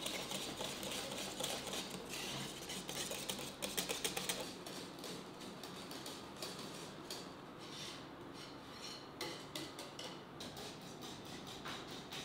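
Wire whisk beating a batter in a clay bowl: a rapid run of light clicking strokes of metal against the bowl, whisked until the batter has no lumps left. The strokes are densest in the first few seconds, then come more spaced out.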